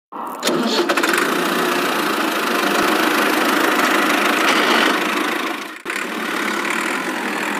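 Tractor engine running steadily, with a short dip just before six seconds in.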